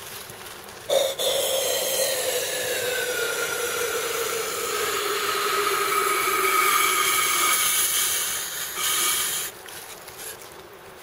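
Hot water poured from a metal bottle into a wooden kuksa cup of coffee: a steady pouring stream with a ringing tone that slowly falls in pitch. It starts with a knock about a second in and stops about a second and a half before the end.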